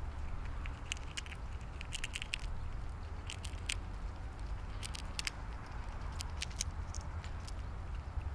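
Fox squirrel gnawing and cracking a peanut shell close to the microphone: irregular clusters of sharp crunching clicks over a steady low rumble.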